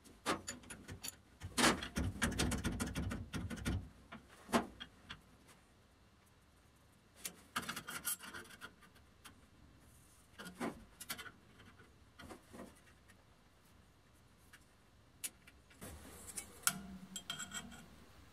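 Irregular clicks, knocks and scraping of metal parts and hand tools being handled, with a longer clattering rub about two seconds in.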